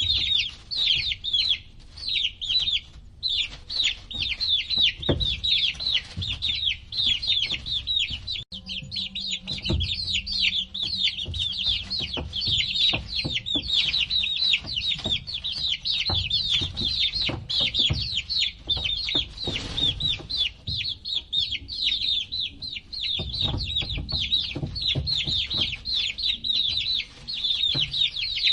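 A brood of baby chicks peeping nonstop, many short, high, falling chirps overlapping one another, with scattered low bumps and knocks underneath.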